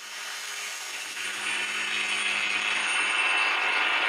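Power tool cutting through the weld of a steel mini bike fork tube. It makes a steady, noisy cutting sound that builds over about the first second and then holds.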